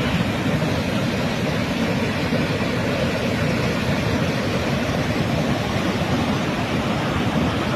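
Waterfall: falling water making a steady, unbroken rush, heaviest in the low range.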